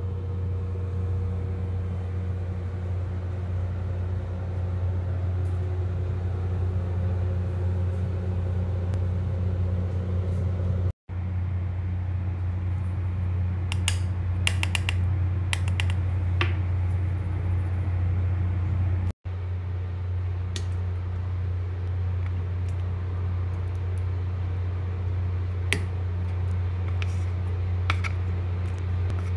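A steady low hum runs throughout and breaks off for an instant twice. About halfway through comes a quick run of light taps and clicks from a hand-held mesh sieve as flour is sifted through it into a bowl.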